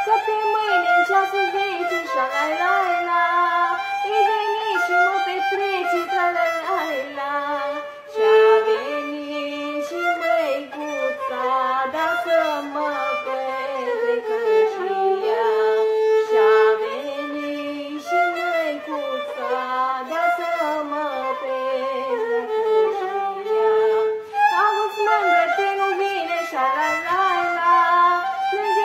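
Violin and a woman's voice performing a slow, ornamented Romanian folk song, a cântec de cătănie (soldier's song), the violin following the sung melody.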